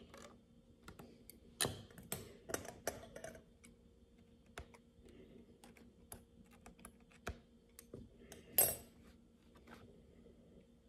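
Small steel surgical instruments, a needle holder and forceps, clicking and scraping while a suture knot is tied in canvas. Scattered faint ticks, a quick flurry of clicks about two seconds in, and one louder clatter near the end.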